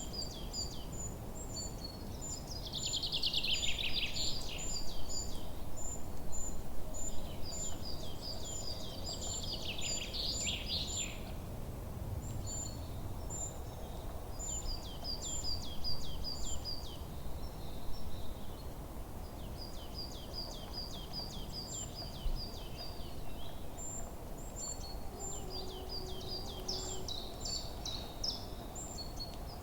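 Forest ambience of several songbirds chirping in quick, high repeated notes throughout. Twice a louder trill sweeps down in pitch, over a low steady background rush.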